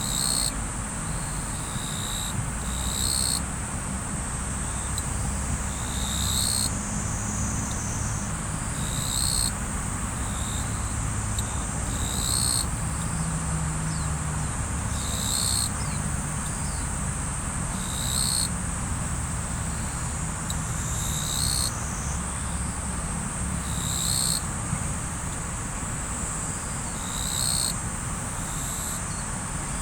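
Riverside ambience: water flowing steadily under a constant high drone of insects. A short high call repeats about every three seconds.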